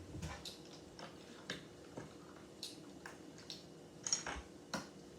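Lego bricks handled and pressed together, giving faint, irregular plastic clicks.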